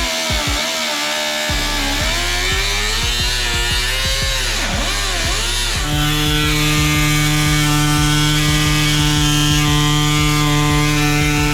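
Electric angle grinder working rust off the van's metal. Its motor speed sags and recovers as it is pressed on and eased off. From about six seconds in it runs free at a steady whine.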